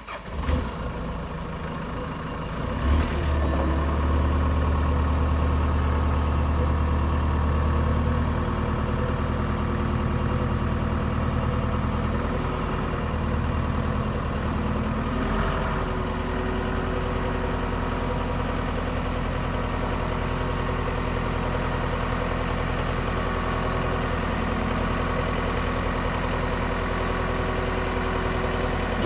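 Combilift C14000 forklift's diesel engine idling just after start-up, a little louder from about three seconds in, then settling to an even idle, with a faint high whine that rises slowly.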